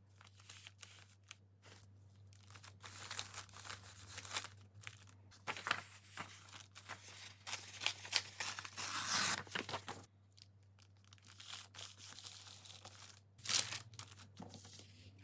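Paper being torn and handled: irregular tearing rasps and rustles, longest and loudest about two-thirds of the way through and again near the end, over a faint steady low hum.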